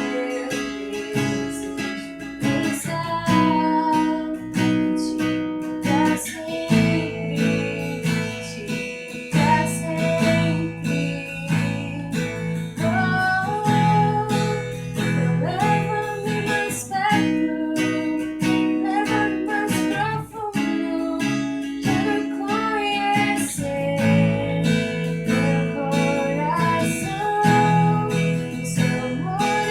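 Acoustic guitar strumming chords while a woman sings a slow melody over it.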